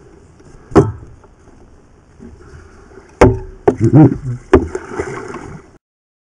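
Loud knocks and thumps on a small boat as a hooked fish is fought: a single knock about a second in, then a rapid cluster of four or five knocks and thuds a couple of seconds later. The sound cuts off abruptly near the end.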